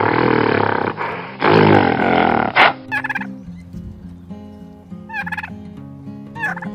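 Two long, loud, harsh animal cries fill the first couple of seconds. Then a turkey gobbles several times, each gobble a short warbling call falling in pitch, over soft background music.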